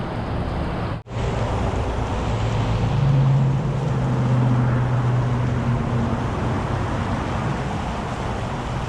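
Small mountain creek rushing over rocks: a steady wash of running water, cut by a brief dropout about a second in.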